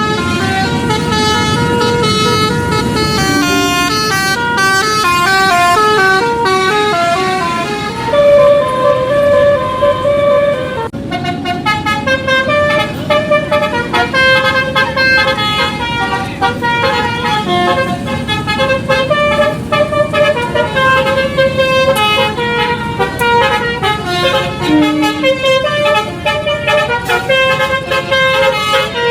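Telolet-style multi-tone bus horns playing a quick melody of stepping notes, over a steady vehicle rumble. There is a brief break about eleven seconds in.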